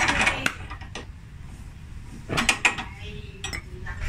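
Scissor jack being cranked by hand with its metal crank rod: metallic clinks and scraping of the rod working the jack's screw. The noise comes in two bouts, one at the start and one about two and a half seconds in.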